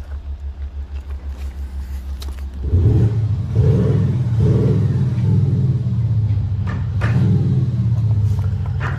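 Volkswagen Touareg running with a Kufatec active sound booster, the exhaust-sound actuator under the rear bumper, being switched between sound profiles from its phone app. At first there is a low throb pulsing about four times a second. Nearly three seconds in it steps up to a louder, deeper rumble that swells and dips: the synthetic exhaust sound of a newly selected profile.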